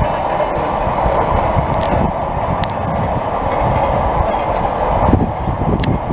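Long freight train of mostly empty container wagons running past, a loud steady rumble with wheels clattering over the rails and occasional sharp clicks.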